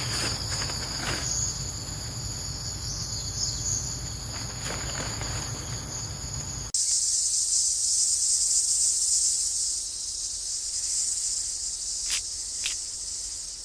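Steady insect chorus with several high, ringing chirr tones over a low rumble. About halfway through it cuts suddenly to a different, hissier insect drone, with two short clicks near the end.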